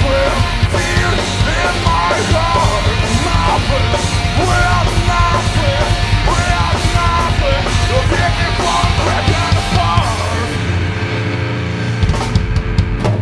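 Heavy rock band playing live: drum kit, distorted electric guitar and bass guitar, loud and dense. About ten seconds in the song ends, leaving a held low note ringing, and a few sharp hits come near the end.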